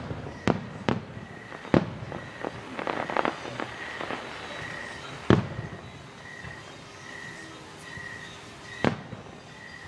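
Aerial firework shells bursting at a distance: five sharp booms, three in the first two seconds, one a little past the middle and one near the end, with a short stretch of crackling about three seconds in. A faint high chirp repeats about every two-thirds of a second underneath.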